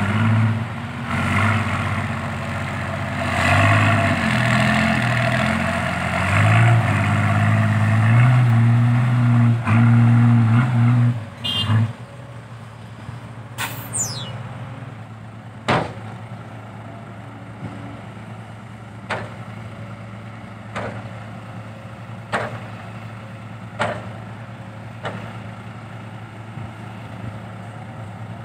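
Isuzu Deca 195 dump truck's diesel engine, fitted with new triple exhaust tips, running loud and rising and falling in pitch as the truck drives for about twelve seconds, then dropping to a quiet idle. Over the idle come short sharp knocks every second or two.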